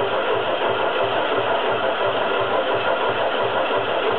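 Chambersburg power hammer running between blows, a steady mechanical rumble with a low throb about four times a second and no hammer strikes.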